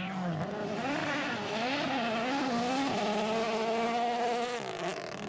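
Rally car engine revving up and down, then holding a steady note before the revs drop about four and a half seconds in.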